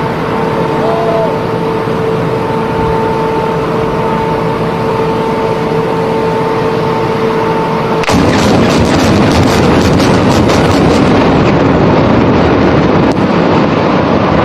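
A steady tone holds for about eight seconds, then a rapid string of sharp cracks from the explosive demolition charges of a high-rise implosion cuts in, running for about three seconds and giving way to a loud continuous rumble.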